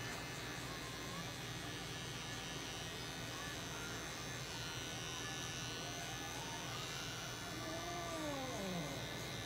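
Small cordless pet clipper buzzing steadily as it trims the hair between a cat's paw pads.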